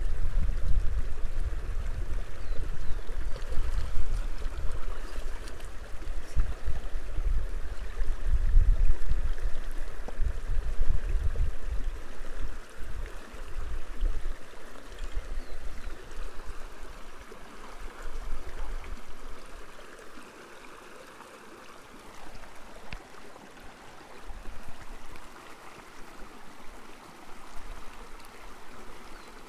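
Shallow mountain river flowing steadily, an even rush of water. A loud, uneven low rumble lies over it for the first twenty seconds or so, then dies away.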